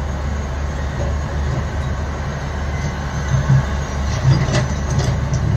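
Large Tata Hitachi hydraulic excavator working, its diesel engine a steady low rumble, with a few short knocks about four and a half to five seconds in.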